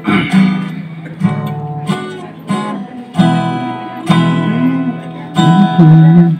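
Acoustic guitar strumming chords in a slow, uneven rhythm, each strum left to ring. Near the end a voice hums a short wavering line along with it.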